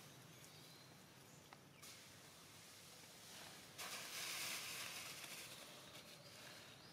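Faint outdoor background with a brief burst of hiss-like noise about four seconds in.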